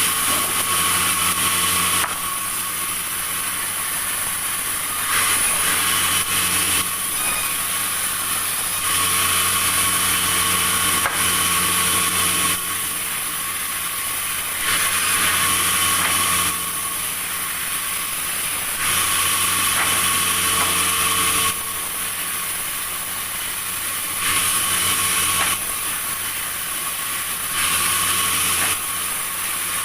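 Sawmill machinery running steadily with a hum. It alternates abruptly between louder and quieter stretches every two to four seconds.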